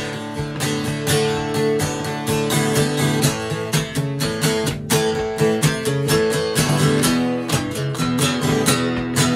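Acoustic guitar strummed in a steady rhythm: an instrumental break in a country song in the key of A.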